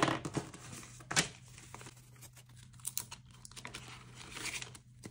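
Paper banknotes rustling and crinkling against the binder's plastic pocket as a stack of bills is pulled out and handled, with scattered small clicks. Two sharp taps stand out, one at the very start and one about a second in.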